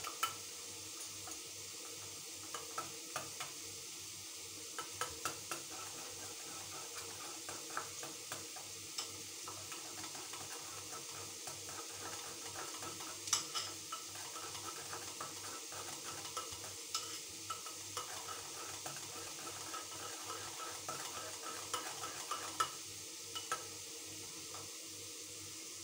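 Stainless-steel wire balloon whisk beating thick curd in a glass bowl: continuous wet swishing with many light clicks of the wires against the glass, and a few sharper taps about halfway through and near the end.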